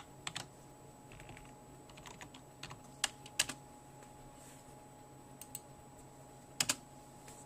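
Computer keyboard keys being tapped in scattered, irregular clicks, with a few louder clicks in pairs, over a faint steady electrical hum.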